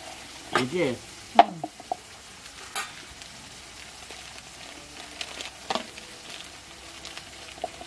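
Plastic bags and a powder packet rustling and crinkling as they are handled, with a few sharp clicks from containers being set down, the loudest about a second and a half in, over a steady hiss. A short wavering call sounds about half a second in.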